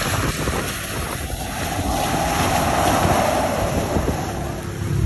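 Chevrolet S10 pickup's engine running hard as its wheels spin through wet sand and mud, under heavy wind noise on the microphone. The engine note swells from about a second in and eases near the end.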